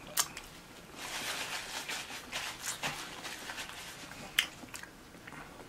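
Close-up eating sounds: wet chewing and smacking with many small clicks, busiest from about one to four seconds in, and a sharp click a little after four seconds.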